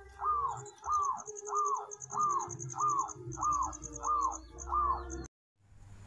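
A bird repeating one short rising-then-falling call note about one and a half times a second, with a fast, high pulsing trill running alongside; both cut off suddenly about five seconds in.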